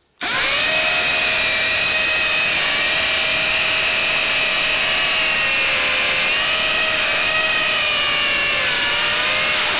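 Two DeWalt cordless hammer drills drilling side by side into a hard concrete slab with masonry bits, both starting at once and running steadily together with a slightly wavering whine.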